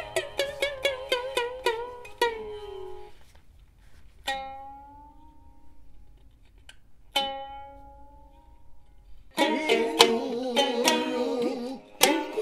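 Bunraku shamisen (the thick-necked futozao) being plucked: a quick run of notes, then two single ringing notes with pauses between them, and fast playing starting up again near the end.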